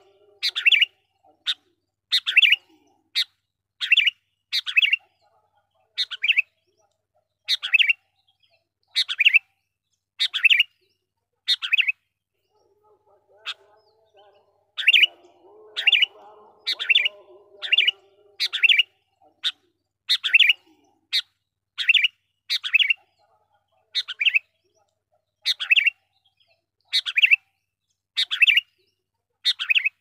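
Sooty-headed bulbul giving short, sharp calls over and over, one or two a second, with a pause of a couple of seconds midway: the busy calling used as a lure call for wild bulbuls.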